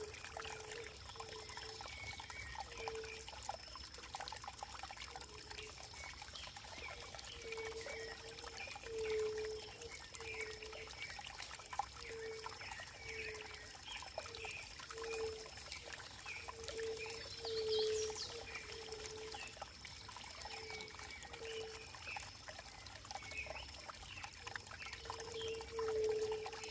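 Running water trickling and pouring steadily, with a short, low-pitched gurgling note that repeats irregularly, about once or twice a second.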